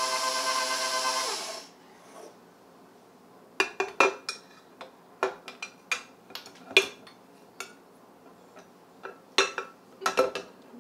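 Stand mixer motor running with a steady hum, then switched off and winding down about a second and a half in. After a pause comes a string of light clinks and taps of a metal spoon against glass and the mixer bowl as milk is added to the buttercream.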